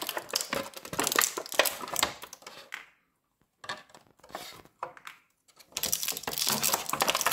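Plastic packaging crackling and small plastic pieces clicking as accessory hands are taken out of an action-figure box's plastic tray. The handling is dense at first, thins out to a few clicks in the middle, and picks up again near the end.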